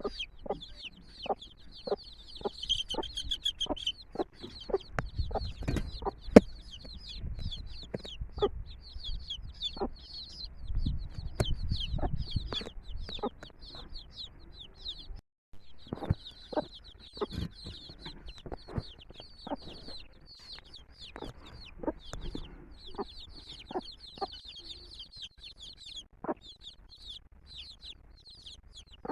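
A brood of chicks peeping continuously in rapid, high-pitched cheeps, with short clucks from the mother hen mixed in. The sound drops out briefly about halfway through.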